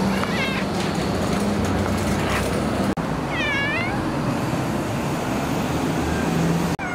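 Domestic cat meowing: a short meow at the start, a faint one after about two seconds, and a longer meow about halfway through that rises and then falls in pitch.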